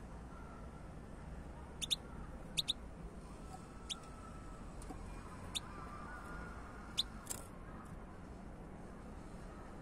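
European goldfinch giving short, high-pitched call notes, about eight scattered chirps, some in quick pairs.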